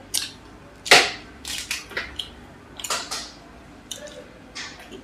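Crisp masala dosa being torn and bitten close to the microphone: a series of sharp, crackling crunches, the loudest about a second in.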